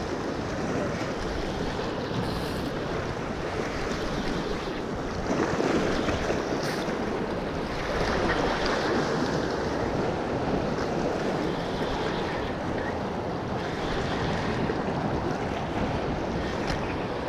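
Sea surf washing over and against coastal rocks, mixed with wind buffeting the microphone; the wash swells a little louder around five and eight seconds in.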